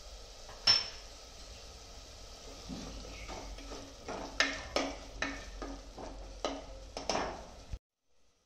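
A spatula stirring thick tomato masala in a metal pressure cooker, scraping and knocking against the pot about ten times in the second half. There is a single sharp clink about a second in. The sound cuts off suddenly near the end.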